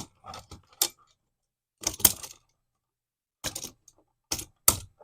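Small metal clicks and clinks in short clusters as the copper wires are hooked onto the wall receptacle's screw terminals.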